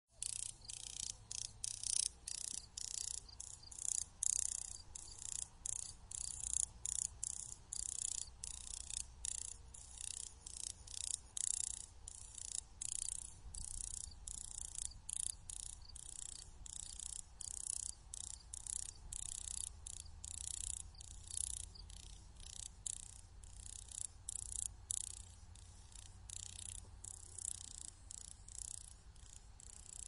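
Grasshopper wing clicks: a long series of short, high, crackling bursts, about two or three a second at an uneven pace.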